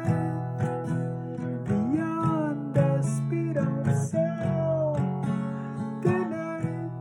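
Acoustic guitar strummed in an instrumental passage, with regular strokes over ringing chords and a few sliding melody notes above them.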